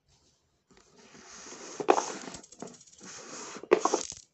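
Hands handling a homemade cardboard box, with rustling and scraping. There are sharp clicks and a quick rattle about two seconds in, and a couple of louder knocks near the end.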